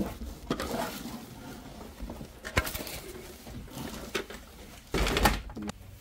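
Plastic wrap and cardboard packaging rustling as a coffee machine is handled in its box, with a sharp click about two and a half seconds in and a louder spell of rustling about five seconds in.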